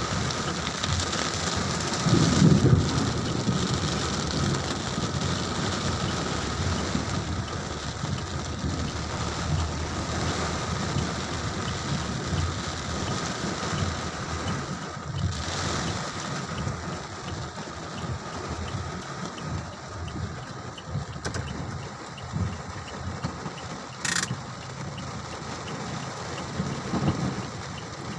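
Steady rain falling, a continuous hiss, with a louder low rumble about two seconds in.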